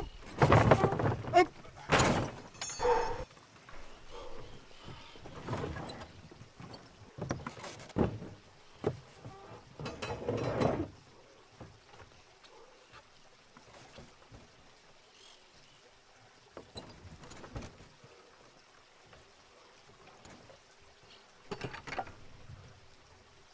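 A heavy block of rough stone being shoved and slid across the wooden plank bed of a cart, with scraping and thuds on the boards. The movement stops after about ten seconds, leaving only a few faint knocks.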